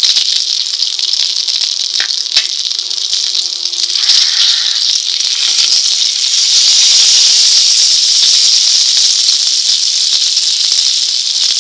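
Rice-flour-coated pomfret shallow-frying in hot oil on a tawa, sizzling steadily, with two short clicks about two seconds in and the sizzle growing louder from about six seconds in.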